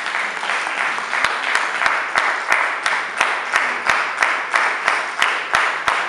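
Audience applause that settles, about a second in, into rhythmic clapping in unison at roughly three claps a second.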